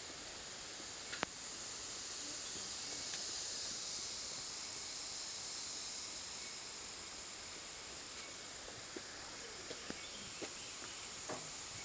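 A chorus of forest insects, a steady high-pitched drone that swells for a few seconds and then eases. Faint scattered clicks and ticks run through it.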